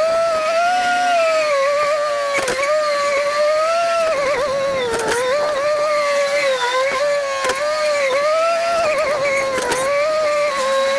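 Farm machine running with a loud whining tone that slowly rises and falls in pitch, and a sharp knock every two to three seconds.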